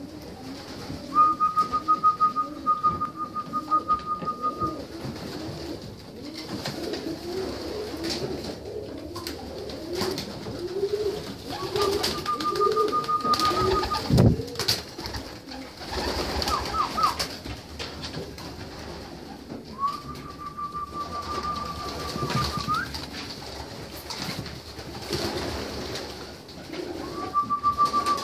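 Racing pigeons cooing in a loft, with repeated low coos that are densest in the first half. A steady high whistled tone comes and goes four times, each time lasting a few seconds. There are scattered light clicks and knocks.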